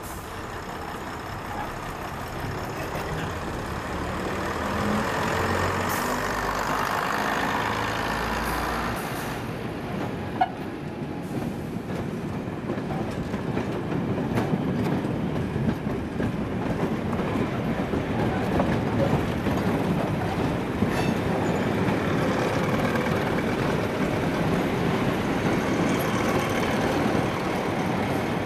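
First-generation diesel multiple unit moving off along the platform. Its underfloor diesel engines pull and the sound builds over the first several seconds, then the coaches go by with a steady rumble and clickety-clack of wheels over rail joints. There is a single sharp click about ten seconds in.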